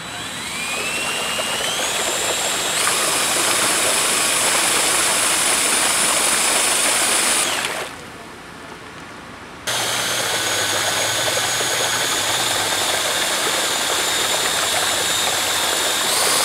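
DeWalt 20-volt cordless drill motor whining as it spins a 3D-printed PLA propeller in pool water, churning the water in a thrust test. It winds up in pitch over the first few seconds, cuts out about 8 s in, then starts again abruptly about 2 s later and steps up in pitch near the end.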